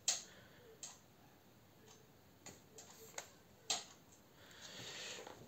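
Faint handling noise: about half a dozen light clicks and taps at uneven intervals, then a brief soft rustle near the end.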